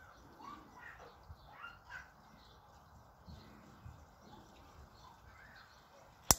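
Faint bird chirps in the background, then near the end a loud, sharp double click from a dog-training clicker, marking the dog's calm behaviour.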